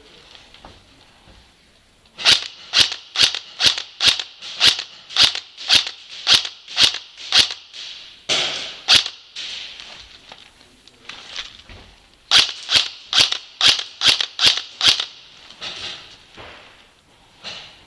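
Airsoft rifle firing single shots in quick succession, about two to three a second: a long string starting about two seconds in, a few more shots around the middle, and a second string later on.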